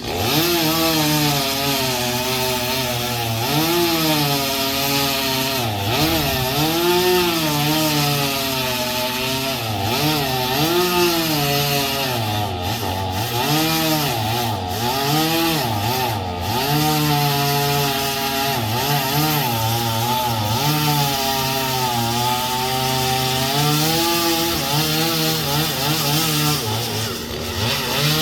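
Two-stroke chainsaw running and cutting wood, its engine pitch rising and falling over and over as it revs and bogs in the cut, with a steady hum underneath.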